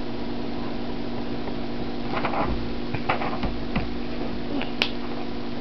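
A steady mechanical hum, with a few light taps and rustles from about two seconds in and one sharp click near the end.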